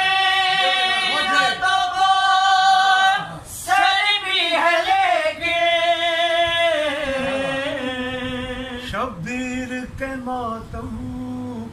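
Men singing an Urdu devotional song unaccompanied. A long, wavering note is held for about three seconds, then a second drawn-out phrase steps down in pitch, and lower held singing follows near the end.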